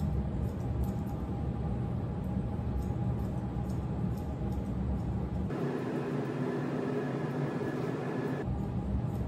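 A steady low hum with a hiss, with faint, irregular high clicks of grooming scissors snipping through a dog's curly coat. The hum changes character for about three seconds in the middle, its lowest part dropping away.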